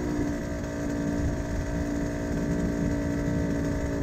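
A large group of motorcycle engines running together in a steady drone.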